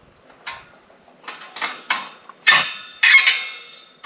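Sharp metal clanks with a short ring, about six spread over a few seconds and loudest past the middle: a wrench knocking on a metal gate's hinge bolts and frame as they are tightened.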